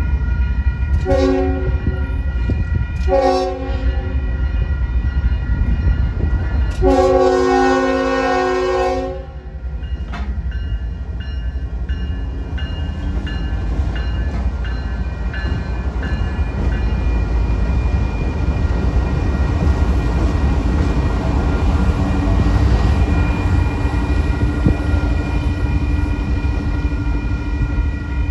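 Union Pacific diesel locomotive sounding its horn at a grade crossing: two short blasts, then a longer one that ends about nine seconds in. The locomotive then rumbles past while the crossing signal bell rings steadily.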